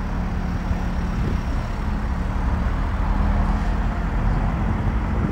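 Learner truck being driven, its engine running at a steady pitch with road noise, heard from inside the cab.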